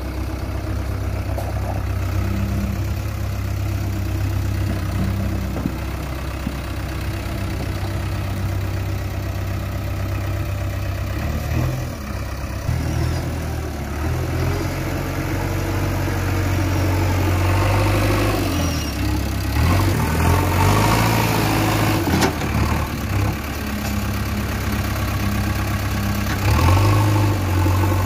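JCB 3DX backhoe loader's diesel engine running while the backhoe arm works. The engine note holds steady at first, then dips and rises several times through the middle before settling again near the end.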